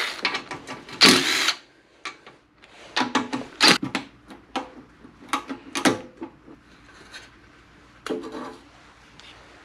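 A cordless driver whirs briefly, backing out a crankcase side-cover bolt on a 212cc small engine. After that comes a run of sharp knocks and clunks as the aluminium side cover is worked loose from the crankcase by hand.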